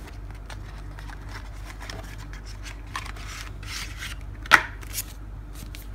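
Hands opening a small cardboard box and sliding out its contents: cardboard rubbing and scraping, with paper and a plastic clamshell rustling and many small clicks. A single sharp click stands out about four and a half seconds in.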